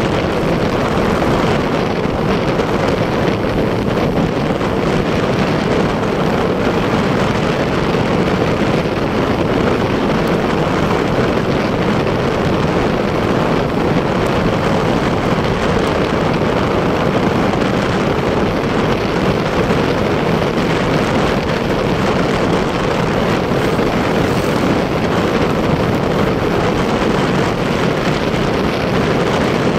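Steady wind rush over the microphone mixed with the running engine of a motorcycle cruising along a road.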